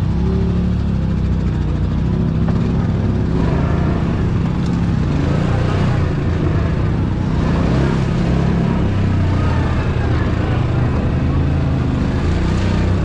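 ATV engine running at low trail speed, a steady low drone that wavers a little in pitch as the throttle is eased on and off.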